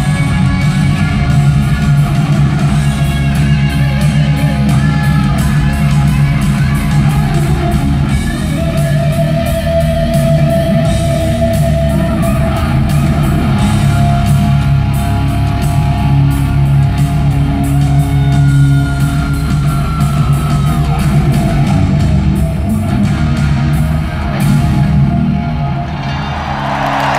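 Live amplified hard rock in an arena, led by a distorted electric guitar solo with long held notes and a pitch bend, over a steady low backing.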